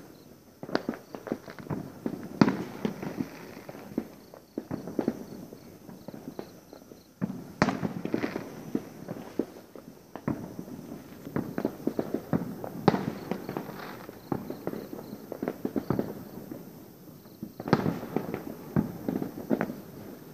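Fireworks going off: many bangs, pops and crackles in irregular clusters, with a louder bang roughly every five seconds.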